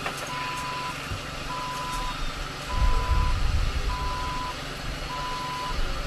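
Vehicle warning beeper sounding a steady one-pitch electronic beep, repeating about once a second, five beeps in all. A low rumble swells up under it about three seconds in.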